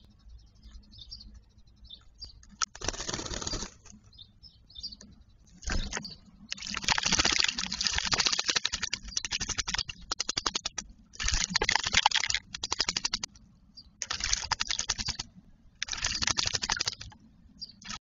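A Eurasian blackbird bathing in a shallow bird bath, beating its wings in the water in bouts of rapid splashing. The bouts last from one to about four seconds, the longest in the middle, with short pauses between them. Faint high chirps come early on.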